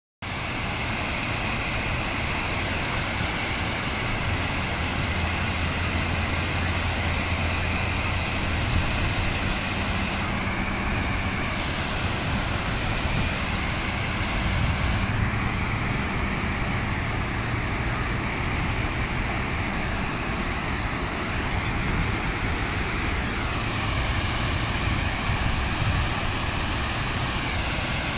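Steady rush of river water pouring over a low dam's spillway, with a low hum for several seconds near the start.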